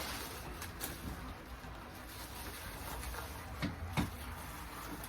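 Light handling noise as a bike repair stand is pulled out of its box: faint rustling with a few sharp knocks, the loudest two close together about four seconds in.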